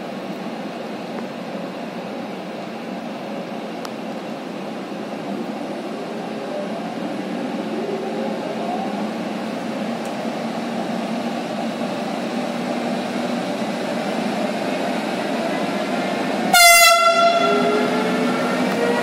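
A train approaching, its running noise growing gradually louder, then one short, loud horn blast near the end. A whine rising slowly in pitch follows.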